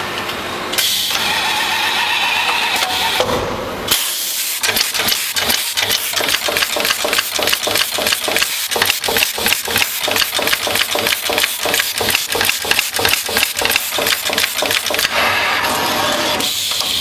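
Pneumatic eyelet pin insertion machine at work on a circuit board: a fast, even run of mechanical clacks, about three a second, from about four seconds in until near the end, with a steady hiss before and after.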